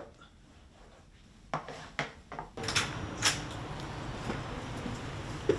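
A few light knocks in a quiet room. About halfway through, a steady low outdoor hum sets in, with clicks and a dull thump near the end as a door is handled.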